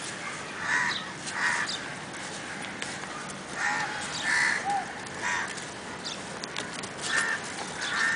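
Short, harsh animal calls, about seven of them, mostly coming in pairs less than a second apart.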